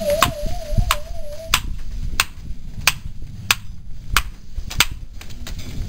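Displaying male domestic pigeons cooing low and steadily. Sharp, evenly spaced clicks come about every two-thirds of a second, and a wavering high tone fades out about a second and a half in.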